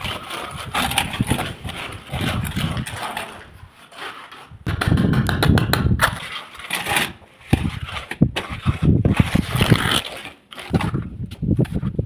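Irregular scraping and rubbing in bursts of a second or two with short pauses, with some sharp clicks.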